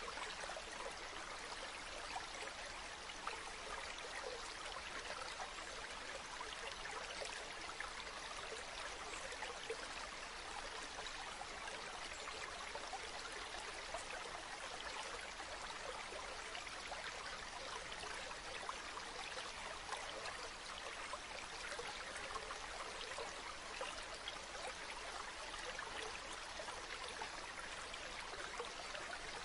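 Steady sizzling of food frying in oil in a skillet, a constant hiss full of fine crackles.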